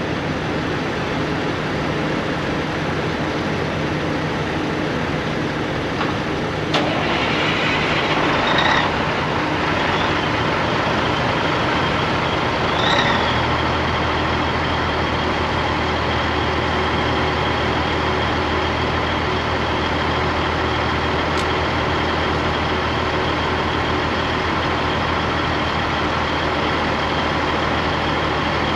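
Caterpillar 3406B diesel in a Peterbilt cabover being started: a sudden change about seven seconds in, then about halfway through a deep, steady idle sets in and holds.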